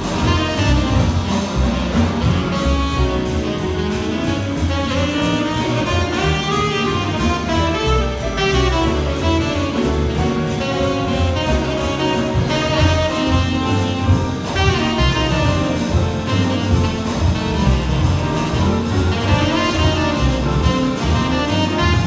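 Live big band playing jazz, with a saxophone solo line over the brass and the rhythm section and a steady beat.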